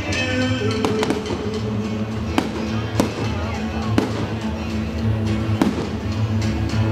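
Aerial fireworks bursting overhead: several sharp bangs, about a second apart, over music playing steadily.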